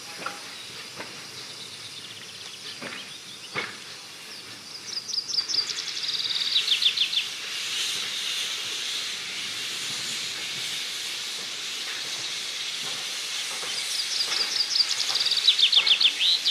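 Saxon IV K narrow-gauge steam locomotive hissing steadily, steam escaping at the front near the cylinders, the hiss setting in about a third of the way in after a few light clicks. Over it a songbird sings twice, each time a quick run of falling notes.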